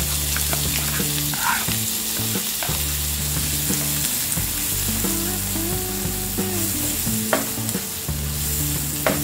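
Freshly added chopped onion sizzling in hot oil and ghee in a nonstick frying pan, stirred with a wooden spatula, with a few light knocks of the spatula against the pan.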